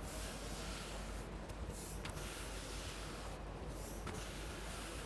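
Long-handled flat applicator swishing across a freshly coated solid lim-wood slab, spreading the wet finish in repeated strokes. The swishing pauses briefly about every two seconds as each stroke turns.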